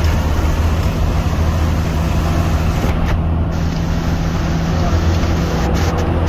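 Steady low engine drone and road noise inside a moving intercity bus.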